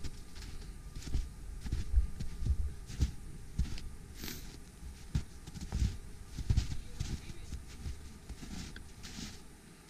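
Footsteps in snow, an uneven tread of low thuds about one to two a second.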